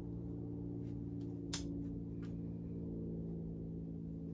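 Torque wrench tightening a cylinder head bolt on a Mercury 2.5 outboard powerhead: a few light clicks and one sharper click about a second and a half in, over a steady low hum.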